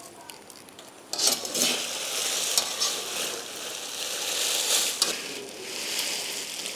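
Crisp sun-dried red chillies and roasted spices being stirred and tossed in a metal kadai with a perforated metal ladle: a dry crackling, rustling scrape that starts about a second in, eases briefly near the end, then picks up again.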